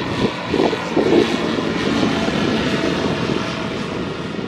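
Single-engine propeller light aircraft flying past, its engine and propeller making a steady drone, with gusts of wind buffeting the microphone.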